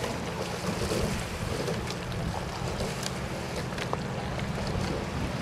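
Wind buffeting the microphone: a steady low rumble with hiss and a few faint clicks.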